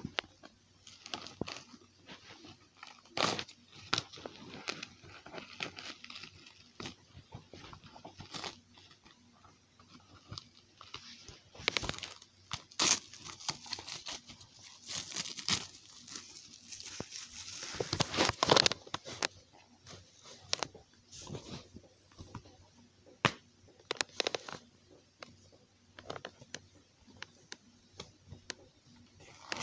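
Clear plastic shrink-wrap being torn and peeled off a Blu-ray case, crinkling and crackling in uneven bursts that are loudest about two-thirds of the way through. Scattered clicks and taps come from the plastic case being handled.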